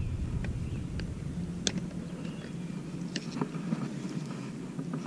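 Scattered light clicks and knocks from handling a fish on a plastic lip-grip scale, the sharpest about a second and a half in, over a faint low steady hum.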